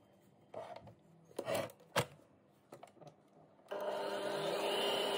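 Faint scraping and rubbing of a utensil mixing body scrub in a bowl, with a sharp knock about two seconds in. Near the end an electric mixer switches on and runs steadily with a whine, whipping the scrub.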